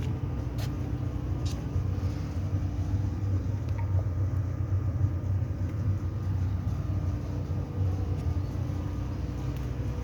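A steady low machine hum with a few steady tones above it and a few brief clicks.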